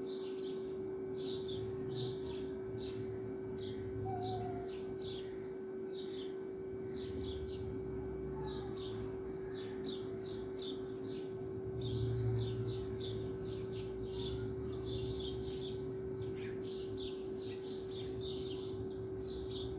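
Small birds chirping, a rapid, continuous run of short, high chirps, over a steady hum.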